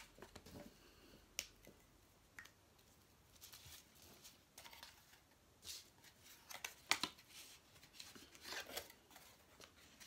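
Faint handling of cardboard pieces on a table: a scatter of short scrapes, rustles and light taps as the card is moved and lined up.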